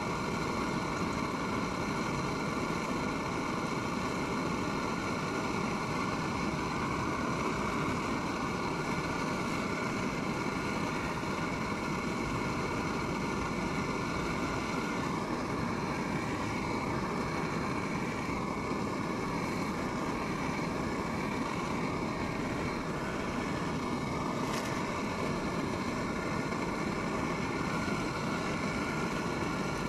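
Steady, even rushing noise with no breaks. A faint wavering tone comes and goes through the middle.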